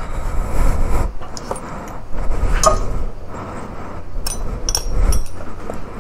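Metal hand tools, an Allen key and a screwdriver from a motorcycle's cloth toolkit pouch, clinking against each other as they are pulled out and handled. There are a few light chinks, and one short ringing clink about two and a half seconds in, over a low rumble.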